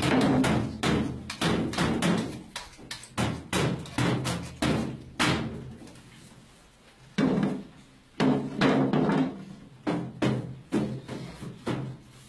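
Hand-held frame drum beaten by hand. A fast run of strokes opens, thinning to separate strokes that each ring briefly, then a pause of about two seconds, then further clusters of strokes.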